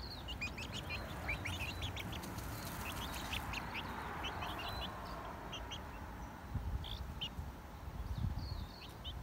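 Young chicks peeping over and over in short, high, falling cheeps while they scratch and dust-bathe in dry leaves and soil, with a soft rustling of the leaves, strongest mid-way.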